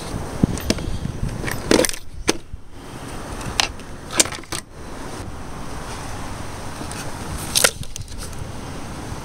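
Scattered clicks and knocks of a hand moving hoses and parts in a car's engine bay, over a low wind rumble on the microphone.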